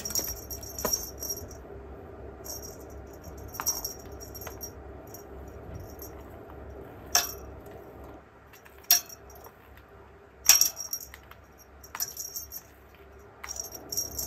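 A small metal bell on a cat teaser toy jingling in short, irregular bursts as the toy is swung and batted about, some bursts starting with a sharp tap.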